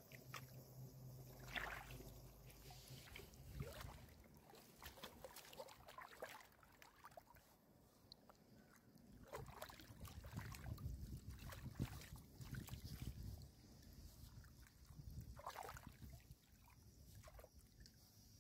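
Faint, intermittent small splashes and sloshing of shallow water as a carp is held and moved by hand while it is revived for release.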